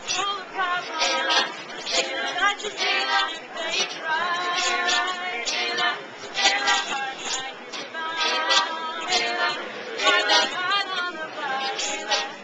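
A mixed group of young women and men singing together unaccompanied, in sung phrases that run on without a break.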